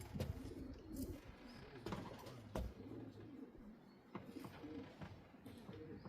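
Domestic pigeons cooing, with a few short sharp taps in between.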